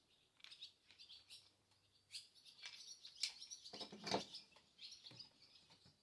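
Small birds chirping repeatedly in the background, with a few light handling knocks; the loudest, about four seconds in, is the plastic chainsaw bar cover being set down on a wooden table.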